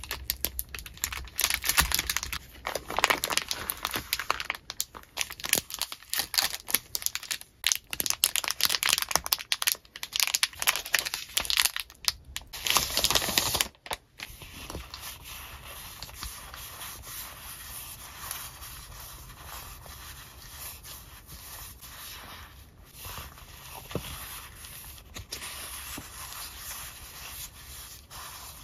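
Clear plastic sleeves and stacks of paper stickers crinkling and rustling as they are handled and shuffled, loud and busy at first. After about fourteen seconds it drops to a quieter, softer rustle of sticker sheets being fanned and sorted.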